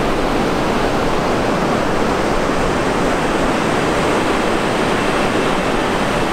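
Ocean surf breaking and washing in on a sandy beach, a steady unbroken noise.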